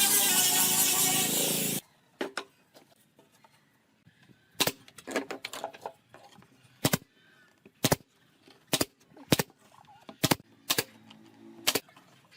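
A power drill running, cutting off suddenly about two seconds in, followed by a series of sharp knocks at irregular intervals, roughly one a second.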